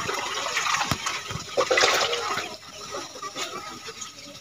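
Water sloshing and splashing in an aluminium bucket as hands wash cut taro (arbi) leaves and stalks, loudest about two seconds in.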